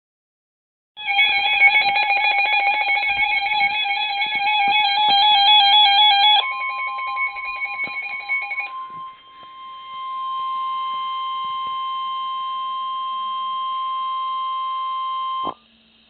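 Midland WR-100 weather radio sounding its warning alarm, a fast-pulsing electronic tone, starting about a second in. At about six seconds a steady NOAA Weather Radio 1050 Hz alert tone comes in. The tone carries on alone from about nine seconds and cuts off suddenly near the end. Together they signal an incoming severe thunderstorm warning.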